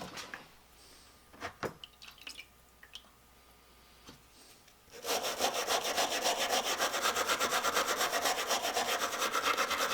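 Handling clicks, then from about halfway in, rapid, even back-and-forth scrubbing on an old adjustable wrench to loosen soaked-off mud and gunk.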